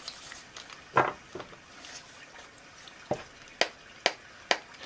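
Tarot cards being drawn from a deck and laid down on the table: a handful of short, sharp clicks at irregular intervals.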